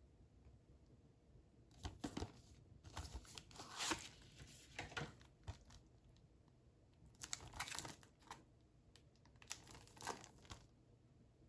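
Plastic wrapping on a 4K Blu-ray case being torn and crinkled off by hand, in three bursts of crackling, about two seconds in, about seven seconds in and about nine and a half seconds in.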